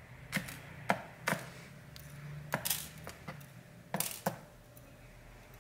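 Tiny Torx T6 screws and a screwdriver tip clicking against the laptop's plastic base as the screws are picked up one at a time and set aside: about eight sharp, light clicks at irregular intervals.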